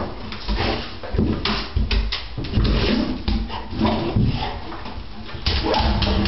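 Golden retriever splashing in water in a bathtub, its face dipped into the water, with irregular splashes and knocks.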